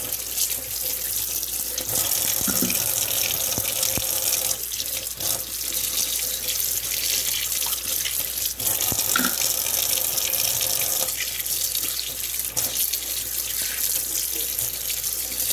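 Kitchen tap running steadily into a stainless steel sink, the stream splashing over pieces of parboiled chicken being rinsed by hand.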